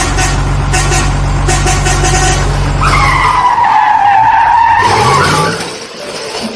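A vehicle engine running steadily with a few clicks, then a long tyre squeal that dips and rises in pitch for about two and a half seconds before fading.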